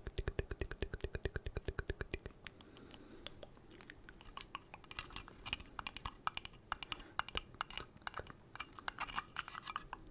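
Rapid, even tapping on a vinyl Funko Pop figure, about a dozen taps a second, stops after two seconds or so. Irregular clicks, taps and crackly scratching follow as the figure and its base are handled close to the microphone.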